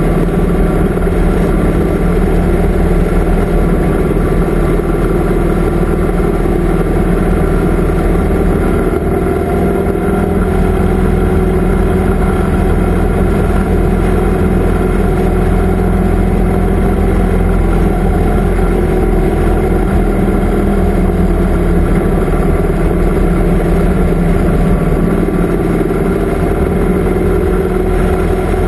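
Touring motorcycle engine running steadily at cruising speed, heard from on board the bike along with road and wind noise.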